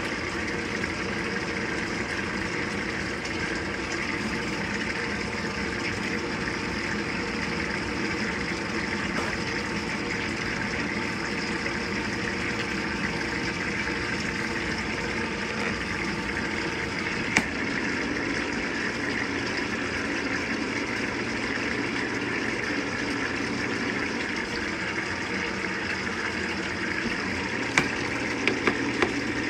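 Avanti top-load washing machine filling its tub with water on the medium water-level setting: a steady rush of water pouring in. There is one sharp click partway through and a few clicks near the end, and a faint low hum joins about two-thirds of the way in.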